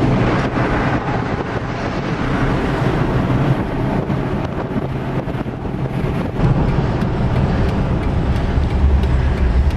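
Road and wind noise inside a Jeep Wrangler's cabin while driving at freeway speed, over a steady low engine drone. A deeper rumble grows near the end.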